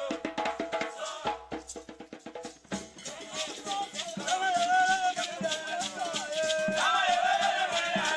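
Traditional Liberian dance music: hand drums beating a quick rhythm with a shaker rattling, and a voice singing a wavering line that comes in about three seconds in.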